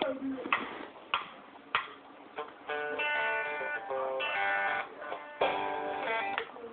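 A child's toy guitar: sharp strums about every half second for the first two seconds, then chords held for about a second each, three times.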